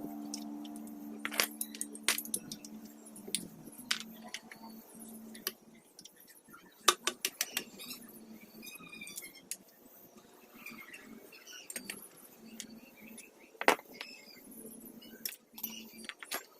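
Irregular metallic clinks and knocks of hand tools and parts during an Avanza engine teardown, with a sharper knock about 7 seconds in and another near 14 seconds.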